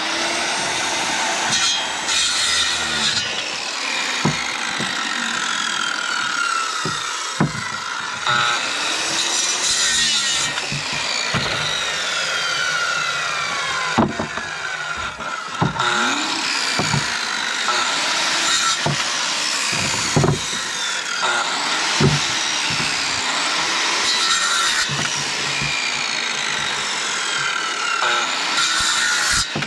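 Corded circular saw running and cutting through frozen moose ribs, meat and bone. It is a continuous whine that falls in pitch again and again as the blade is pushed through, with knocks as pieces are struck and moved.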